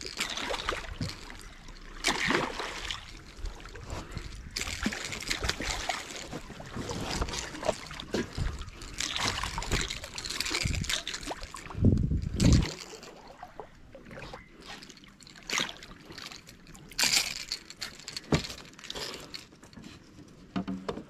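Water splashing and sloshing beside a small fibreglass boat as a hooked fish is fought and brought in, with one heavy low thump about twelve seconds in.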